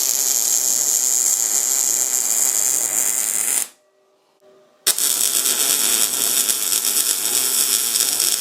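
MIG welder laying weld beads: a steady crackling buzz of the arc in two runs. The first stops about three and a half seconds in, and the second starts about a second later.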